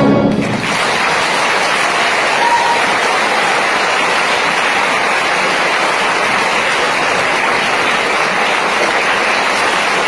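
The orchestra's final chord cuts off about half a second in, followed by dense, steady applause from a theatre audience.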